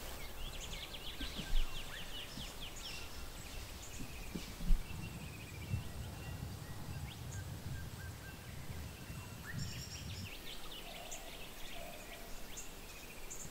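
Birds calling: a rapid trill of short, quickly falling high notes about a second in, then a few brief high whistles later, over a low steady rumble of outdoor background noise.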